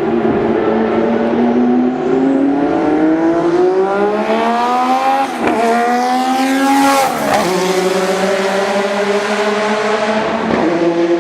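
Turbocharged race car engine accelerating hard. The revs climb, drop sharply at an upshift about five seconds in, climb again and drop at a second shift about seven seconds in, then run on at a steadier, lower pitch.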